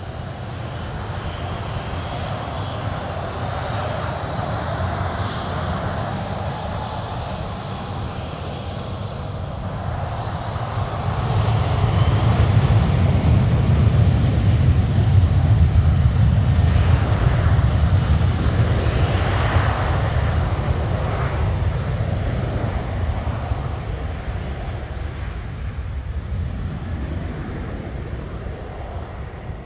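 Boeing 737-800 jet engines running as the airliner taxis past. A high whine with gliding pitch is heard in the first several seconds, then a low rumble grows loudest about 12 to 18 seconds in and fades as the jet moves away.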